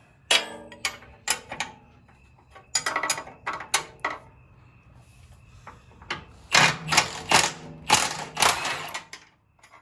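Impact wrench hammering in short bursts, three runs of them with the longest and loudest near the end, as it spins a bolt out of the stabilizer frame.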